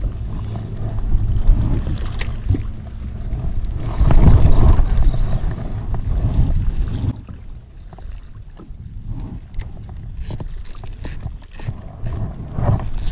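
Wind rumbling on the microphone aboard a small kayak at sea, with water lapping and small clicks and knocks of gear being handled. The rumble drops away about seven seconds in, leaving quieter lapping and clicks.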